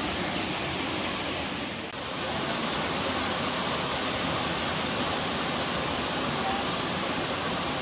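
Steady rush of clear spring water flowing. The rush dips briefly about two seconds in.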